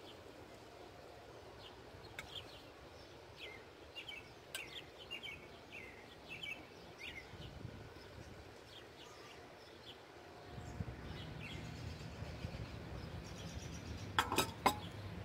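Small birds chirping in short, quick notes that slide downward, with a low wind rumble on the microphone coming in after about ten seconds and a few sharp knocks near the end.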